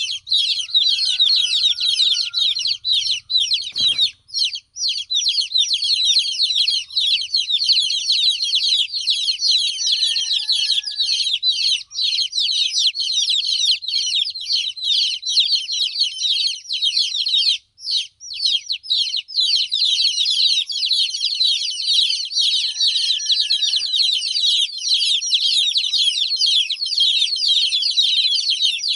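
A brood of baby chicks peeping loudly and without let-up, a dense chorus of quick, high, downward-sliding chirps that breaks off only briefly about four and eighteen seconds in. These are the distress calls of chicks left without the mother hen.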